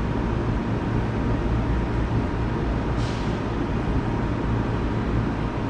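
Electric commuter train rumbling at a station platform, with a short hiss of air about three seconds in.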